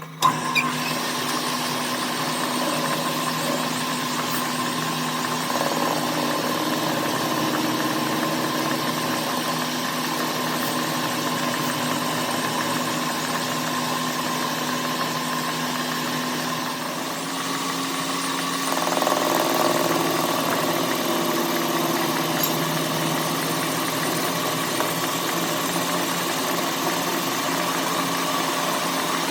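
Petter engine starting with a sharp burst, then running steadily at idle, its steady hum getting a little louder about two-thirds of the way through; this is a test run after its pulley repair.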